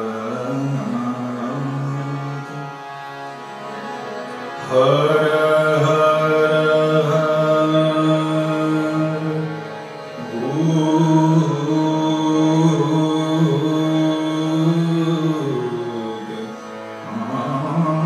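Hindustani classical vocal music: a singer holds long notes of a bhajan over harmonium accompaniment. Each phrase slides up into its note, and the music swells louder about five seconds in and again about ten seconds in.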